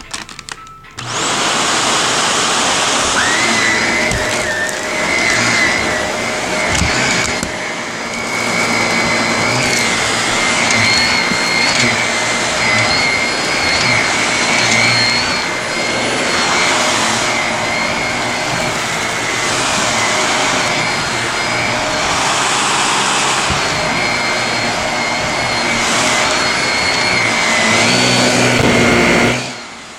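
Vacuum cleaner switched on about a second in and running steadily with a high whine over its airflow noise, then cut off near the end: a test run after refitting a part.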